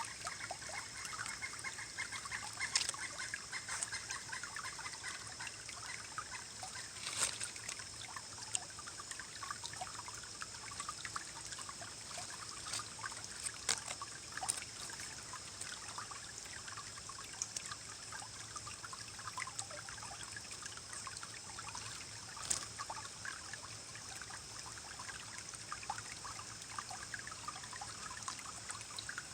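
Small forest stream churning and rippling over rocks: a steady babble of water with a few sharper splashes scattered through it.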